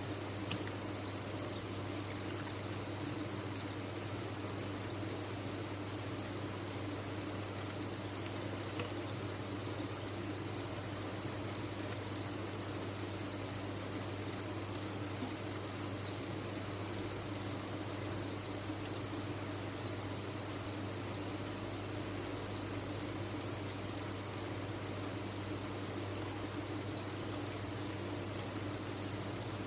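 Dense chorus of many farmed crickets chirping together, a steady high-pitched trill with no pauses, over a faint low hum.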